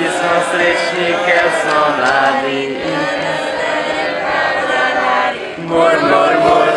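Many voices singing together in a choir-like chant, holding long notes, with a short break about five and a half seconds in.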